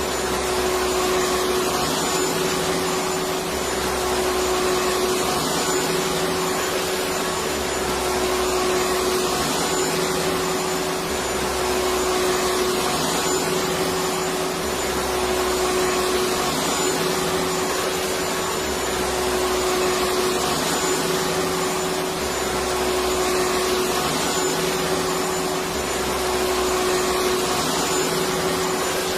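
Electric vacuum cleaner running continuously, a steady rushing motor noise with a constant hum, played as soothing noise for babies.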